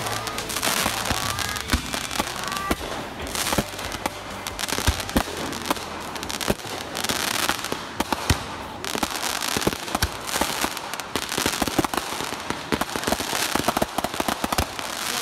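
Aerial consumer fireworks going off in quick succession: many sharp bangs mixed with stretches of dense crackling.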